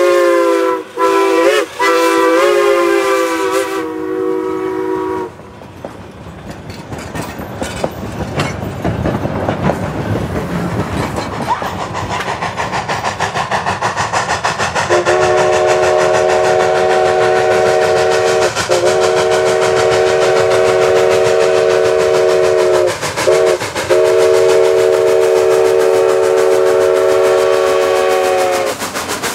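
Detroit, Toledo & Ironton five-chime steam whistle on a steam locomotive, blown long, long, short, long, the pattern of a grade-crossing signal, over the train's running noise. It is preceded by the tail of a three-chime steam whistle, which stops about five seconds in.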